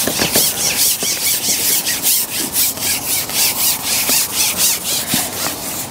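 Rhythmic rasping strokes, about three a second, like something being sawn or scraped back and forth.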